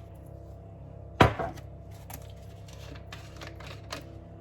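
One sharp kitchen knock about a second in, followed by softer clinks and handling noise from containers and utensils being handled while the biryani is layered, over a steady low hum.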